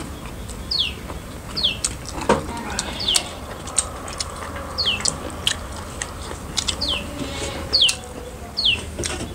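A bird repeating a short, high down-slurred chirp about once a second, over small clicks and smacks of people eating with their hands from metal plates.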